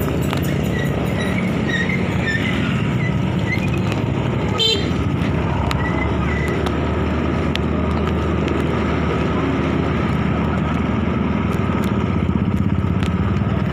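Motorcycle engine running steadily while riding through street traffic among other motorbikes, with a short horn beep about four and a half seconds in.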